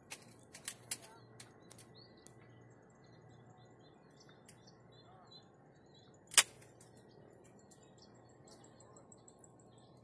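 Quiet outdoor ambience with faint, scattered bird chirps and, near the end, a thin high insect trill. A few sharp clicks sound in the first second, and one loud, sharp click about six seconds in is the loudest sound.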